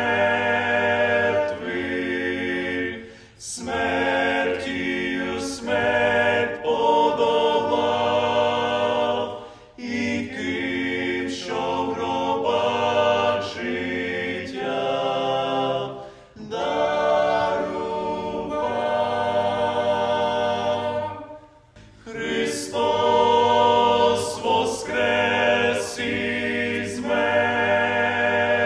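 Unaccompanied choir singing in long held phrases, with short breaks between phrases every five to seven seconds.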